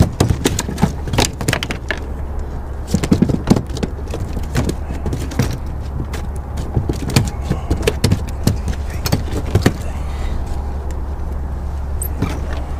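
Irregular clicks and knocks of fishing gear and a landed fish being handled in a plastic fishing kayak, over a steady low hum.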